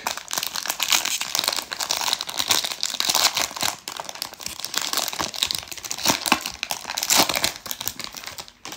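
Plastic foil wrapper of a baseball card pack crinkling as it is handled, then torn open.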